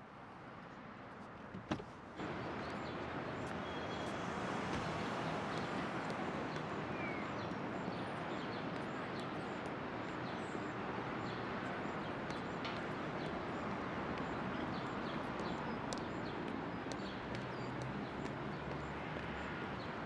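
Steady city street noise of traffic, cutting in suddenly about two seconds in, with light ticks running through it.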